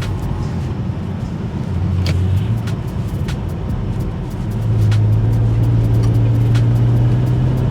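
BMW E92 335i's turbocharged inline-six pulling through a gear while driving, its low drone getting louder and climbing slightly in pitch from about halfway through as the car accelerates. Scattered sharp clicks sound over it.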